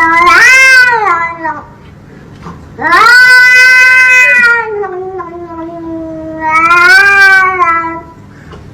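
A domestic cat yowling in long, drawn-out calls that rise and fall in pitch, loud and whiny: one under way at the start, another about three seconds in that trails off in a lower drawn-out tone, and a third near the end.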